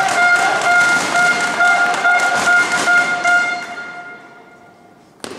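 A horn sounds one long held note over crowd noise with rhythmic clapping, dying away over the last couple of seconds. Near the end comes a single sharp click of a celluloid table tennis ball striking the table.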